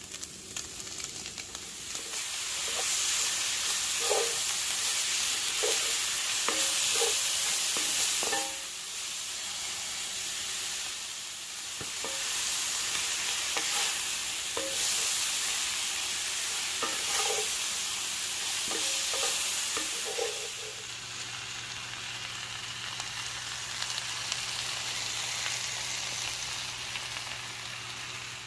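Lamb sizzling in hot oil in a pan as it is stirred, with a utensil knocking against the pan now and then. About two-thirds of the way through the sizzle eases and a low steady hum comes in.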